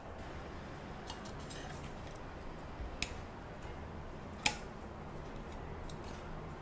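Light clicks of tableware, two sharp ones about three and four and a half seconds in, the second the loudest, over a steady low room hum.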